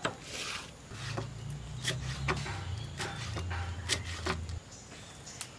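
A kitchen knife chopping spinach leaves on a wooden chopping block, with sharp, uneven knocks of the blade on the wood about every half second to a second. A low hum runs underneath and stops about a second before the end.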